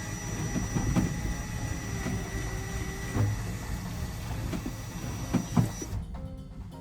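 Scattered knocks and clunks of hand work while mounting a shelf in a boat's engine room, over a steady low rumble and a faint high whine. The background changes abruptly near the end.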